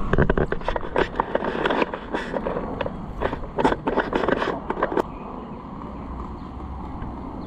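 Rapid, irregular clattering rattle from the Vivi Z8 electric bike's battery pack jiggling loose in its frame mount because it isn't locked in. The rattling stops about five seconds in.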